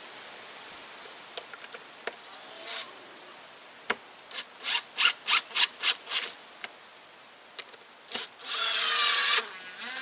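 Tool work on wood while mounting a solar panel bracket: scattered clicks and a knock, then a run of about eight short rasping strokes at roughly four a second, and near the end a burst of about a second from a power tool with a faint whine.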